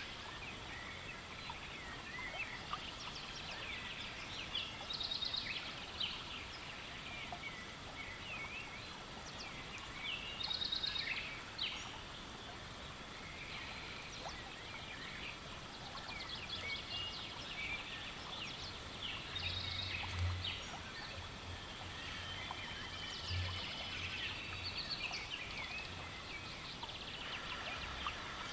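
Several wild birds calling and chirping over a steady outdoor hiss, with a few quick rattling trills scattered through. A few faint low thumps come about two-thirds of the way in.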